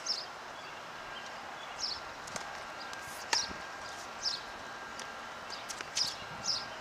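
Tennis rally heard from a distance: a ball struck with racquets and bouncing on the hard court, several sharp pops over steady outdoor background noise. Short high chirps recur about every second or two.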